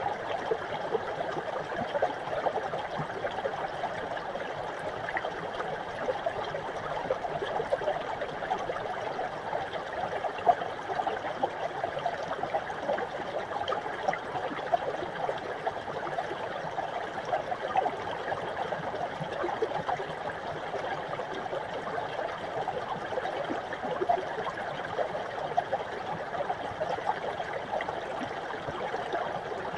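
Small mountain brook, its water running and trickling in a steady rush.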